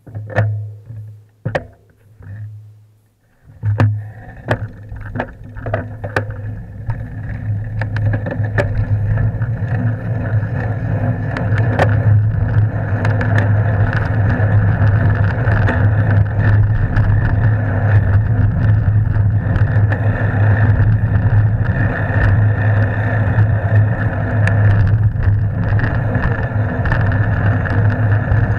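Wind and road noise on a bicycle-mounted camera as the bike sets off, with a steady low rumble. A few sharp clicks and knocks come in the first few seconds, then the rushing noise grows over about ten seconds and holds steady as the bike rides along.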